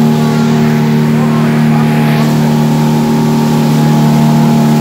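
Boat engine running at a steady cruising speed, a loud even drone, over a rush of wind and water as the boat moves.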